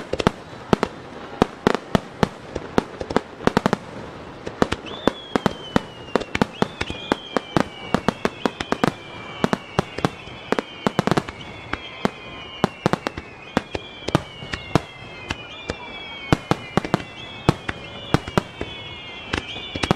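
Fireworks display: a rapid barrage of aerial shell bangs and crackles, several a second. From about five seconds in, high whistles falling in pitch repeat about once a second.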